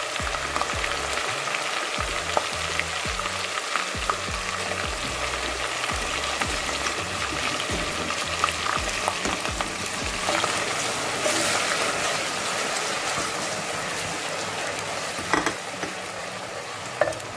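Chopped onion sizzling steadily as it fries in hot oil in a metal pot. A wooden spatula stirs it, with scattered scrapes and knocks against the pot and two louder knocks near the end.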